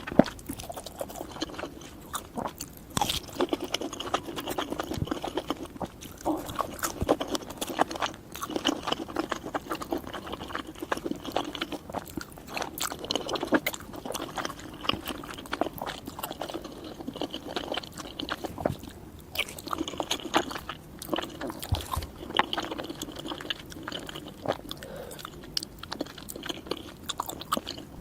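Close-miked chewing of spicy noodles: a steady, irregular run of small mouth clicks and smacks with no words.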